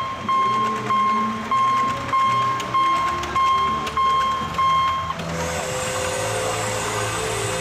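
Electronic warning beeps repeating just under twice a second, a steady tone with overtones, stopping about five seconds in. A steady hiss follows as the miniature coal-fired steam locomotive reaches the camera.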